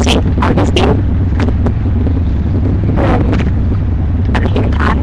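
Steady low rumble of a car's interior, with brief rustling and handling noises as items are moved about close to the phone.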